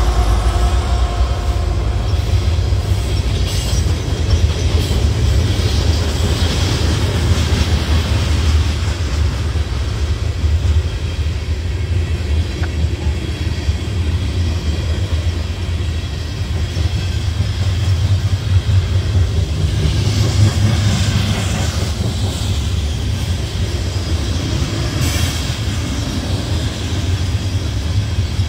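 Loaded CSX coal train passing close by. The last of its lead diesel locomotives goes by in the first seconds, then a long string of loaded coal hoppers rolls past with a steady low rumble and the clatter of steel wheels on the rails.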